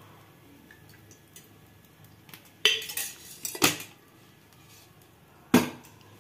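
Three sharp metal clanks of kitchen utensils, each with a short ring: the first two about a second apart, the third near the end.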